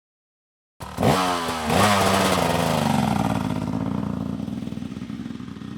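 KTM dirt bike engine revving sharply twice in quick succession, then running on at a steadier pitch and slowly fading.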